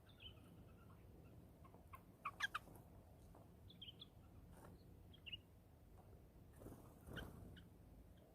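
Birds calling faintly: a quick run of three or four short calls about two seconds in, a few scattered chirps after, and a harsher call near the end.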